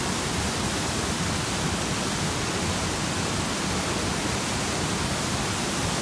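Sol Duc Falls: water plunging in several channels over rocks into a narrow gorge, a steady, even rush with no letup.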